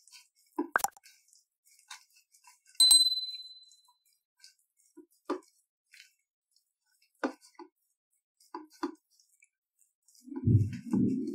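Spoon stirring thick gram-flour batter in a ceramic bowl: scattered soft taps and knocks against the bowl, with one bright ringing clink about three seconds in. Near the end come a couple of dull low thumps.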